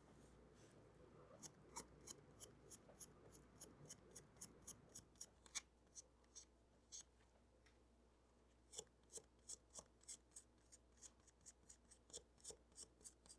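Faint, quick scratching strokes, about three a second, of a fiberglass brush scrubbing the dirty parts of a model locomotive's small electric motor clean. The strokes pause for about a second and a half midway, then start again.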